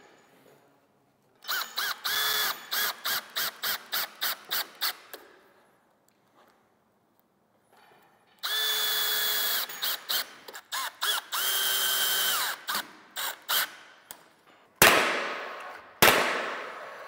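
Cordless drill/driver working in a quick series of short trigger pulses, then in two longer runs that wind up and spin down. Near the end a cordless nail gun fires twice, two sharp bangs about a second apart.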